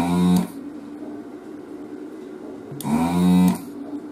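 Desoldering station's vacuum pump switching on in two short bursts, at the start and about three seconds in, sucking molten solder off a circuit board's pins. Each burst opens with a click and a brief rise in pitch as the pump spins up, then holds a steady buzz.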